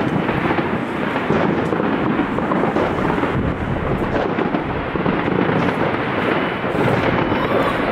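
Many fireworks going off at once, their bangs and crackles merging into one steady, thunder-like rumble.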